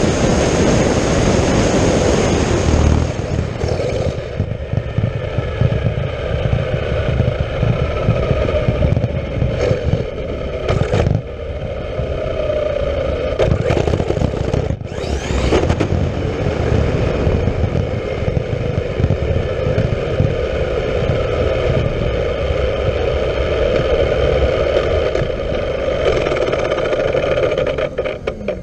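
Traxxas X-Maxx electric RC truck heard from its onboard camera at speed: wind rush, tyre noise and a high motor whine, loudest for about the first three seconds, then easing as it slows. The truck rolls on with a drivetrain whine that slowly falls in pitch, with a couple of sharp knocks along the way.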